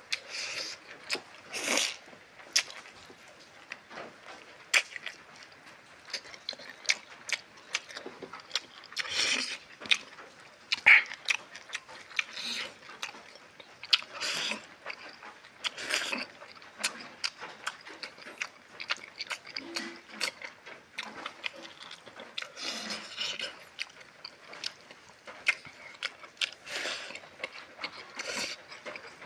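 Close-up eating sounds: a person chewing mouthfuls of rice and meat curry eaten by hand, with irregular wet lip smacks and clicks and a few louder smacking bursts.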